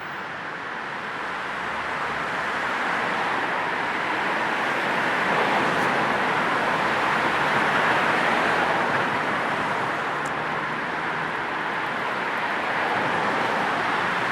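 Steady road traffic noise, a continuous wash of passing vehicles, swelling gradually toward the middle and easing slightly afterward.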